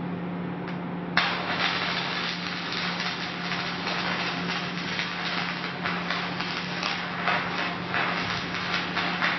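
Stick (electrode) welding arc on thin sheet steel: a dense crackling, sizzling hiss that starts abruptly about a second in, over a steady low hum.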